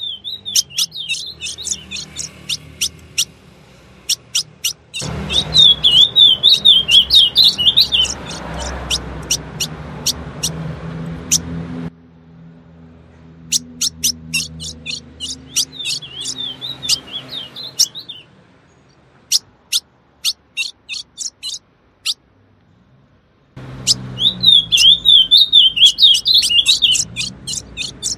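Female ultramarine grosbeak (azulão) calling: quick series of sharp chip notes mixed with bursts of high warbled twittering, over a low background hum. The loud stretches cut in and out abruptly, with a sparse, quieter spell a little past the middle.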